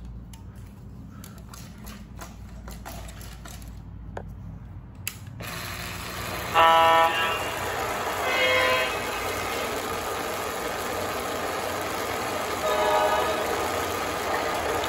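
O gauge model diesel locomotive's onboard sound system: after a few faint clicks, a steady diesel engine sound starts about five seconds in, and three horn blasts sound over it, two close together and a third a few seconds later.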